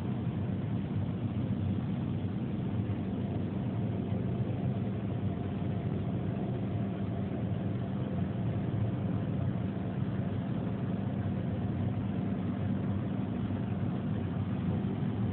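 Steady low mechanical hum with a few faint steady tones, unchanging throughout.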